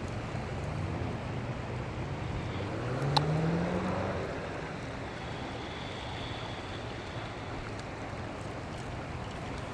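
Steady rush of a shallow river flowing over a riffle. About three seconds in, a brief rising hum swells up and a single sharp click is heard.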